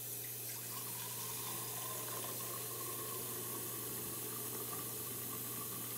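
Cold tap water running from a hose wand into a tall graduated cylinder, a steady pouring hiss. A faint tone comes in about a second in and creeps slowly upward in pitch as the cylinder fills.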